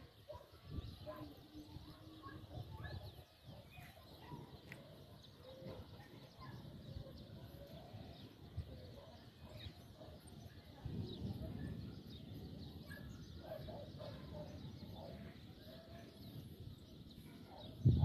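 Outdoor ambience: scattered short bird chirps over a low rumble that grows louder about eleven seconds in.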